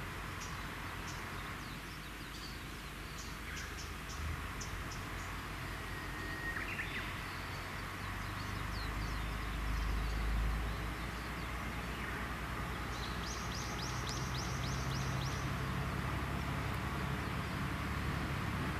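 Wild birds chirping and calling, with a quick run of high chirps about two-thirds of the way in, over a low rumble that slowly grows louder.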